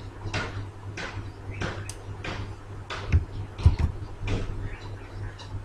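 Computer mouse and keyboard clicks, irregular, while cells are selected and copied, with two heavier knocks a little past the middle, over a steady low electrical hum.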